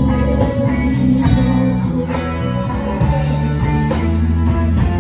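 Music with guitar and steady bass notes.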